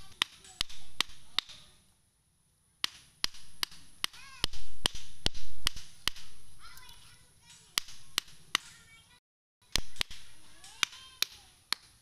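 Sharp knocks of stakes being hammered into the soil, often two or three strikes a second, with a few short pauses and the heaviest blows about halfway through.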